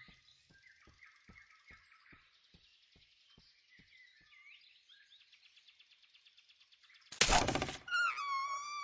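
Soft forest ambience of birds chirping, with a faint regular tapping about two or three times a second. Just after seven seconds comes a short, loud burst of noise, and then music begins, holding long notes with vibrato.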